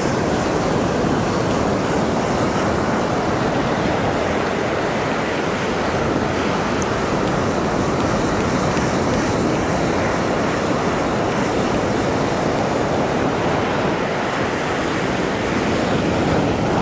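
Ocean surf breaking and washing up a sandy beach: a steady, unbroken rush of small waves.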